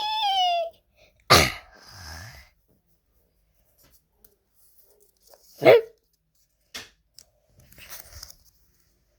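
An animal's short falling whine, then two loud, sharp snorts about four seconds apart, with softer snuffling between them.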